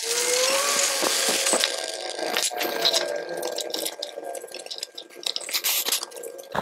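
Aerosol can of brake cleaner hissing as it sprays onto the engine block for about two seconds, followed by a cloth rag scrubbing and wiping the surface in quick irregular strokes.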